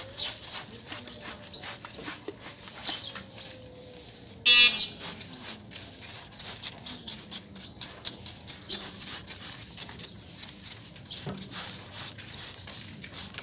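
Paintbrush bristles scrubbing soapy wet engine-bay parts, the brake booster and brake fluid reservoir: a run of short, uneven scratching strokes. About four and a half seconds in, a brief, loud, high-pitched squeal stands out above the scrubbing.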